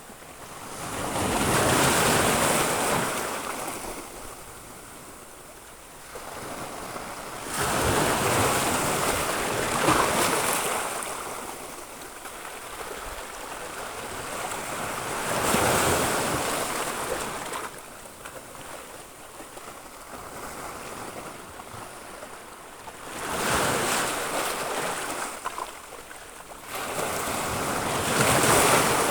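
Sea waves breaking on a sandy beach. The noise swells and falls back five times, each wave about six to eight seconds after the last.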